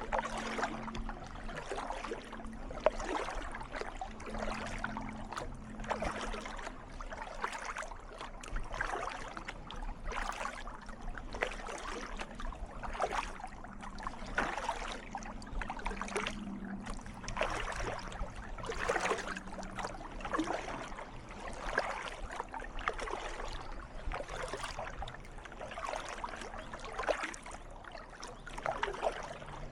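Kayak paddle strokes splashing in calm water, one blade entry after another at a steady pace of about one stroke a second, with water trickling off the blades.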